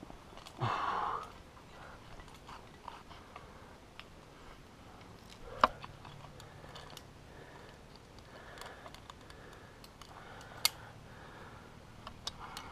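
A climber's rack of metal cams and carabiners clinking on the harness, and hands and climbing shoes scraping on rock, during a trad climb: scattered soft scrapes and taps, with a short rustle about a second in and two sharp metallic clicks, one about midway and one near the end.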